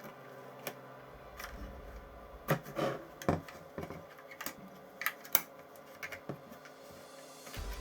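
Irregular clicks and knocks of objects being handled, a dozen or so sharp taps spread unevenly, the loudest cluster about halfway through.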